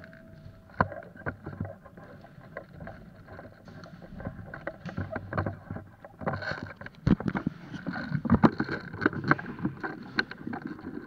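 Rustling and knocking of a body-worn camera and gear as an airsoft player moves. It is quiet at first, then from about six seconds in comes a run of sharp knocks and clicks.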